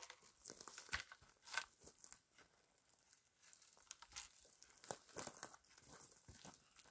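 Faint, intermittent crunching and rustling of boots shifting on dry grass and forest litter while long wooden poles are handled, with a few sharper crackles about a second in and again after four seconds.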